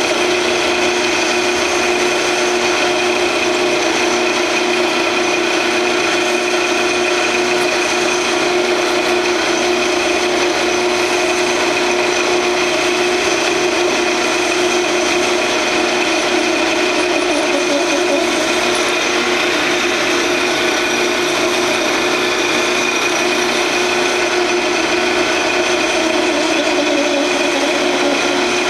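Grizzly G0602 10x22 metal lathe running with a steady whine while a parting tool cuts slowly into the spinning workpiece to part it off, with a rough scraping sound under the whine.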